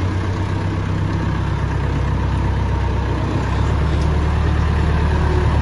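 A motor vehicle's engine running steadily with a low drone; its note steps up and grows slightly louder about three and a half seconds in.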